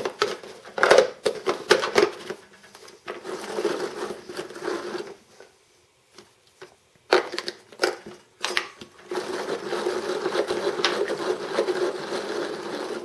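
Express Gourmet hand-cranked plastic food chopper being cranked, its gears and spinning blade chopping tomatoes with a steady rattling whir. It comes in spells, broken by sharp plastic clicks and knocks, with a short lull about halfway.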